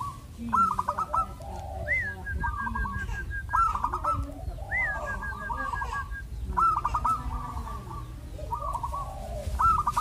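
Zebra dove (perkutut) cooing: short phrases of rapid, stuttering high coos repeated about once a second. Twice a higher rising-and-falling note is followed by a quick run of short notes.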